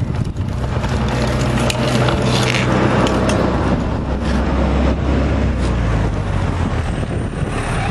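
Hard plastic wheels of a small child's ride-on toy rolling over concrete paving stones: a continuous loud rumble with scattered clicks and clatters, over a steady low drone.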